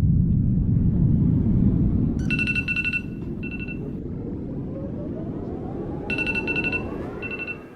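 An electronic ringtone trilling in two rounds, each a long ring and a short one, over a low rumble that fades after the first few seconds. A faint tone rises in pitch near the end.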